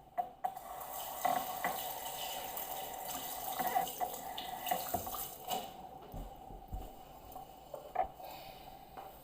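Kitchen tap running into a sink for about five seconds, with a few clinks of dishes, then it stops; a few light knocks follow.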